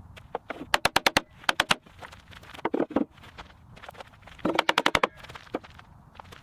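Bursts of rapid sharp knocks, each burst a quick run of strikes, repeating every second or so, from building work on a small shelter.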